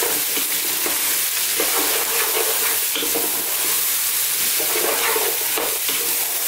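Diced vegetables and ground spices sautéing in a saucepan over medium heat, a steady sizzle, while a wooden spatula stirs them with repeated, irregular scraping and rustling strokes against the pan.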